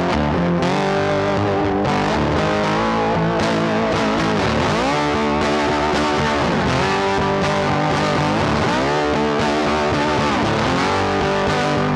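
Background music led by a distorted electric guitar, its notes bending up and down over a steady backing.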